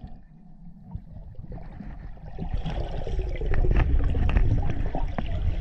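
Muffled underwater sloshing and gurgling of moving water, growing louder about two seconds in, with scattered sharp clicks and knocks.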